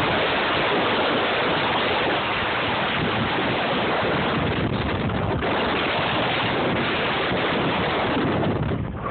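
Blizzard wind blowing hard, a steady loud rush of noise with the gusts hitting the phone's microphone.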